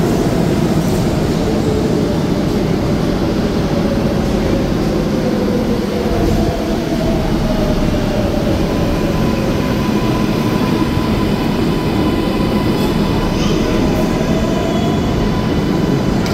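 R188 subway train pulling into the station and braking: a loud, steady rumble of wheels on rail with a whine that falls in pitch as it slows. A higher squeal comes in near the end as it comes to a stop.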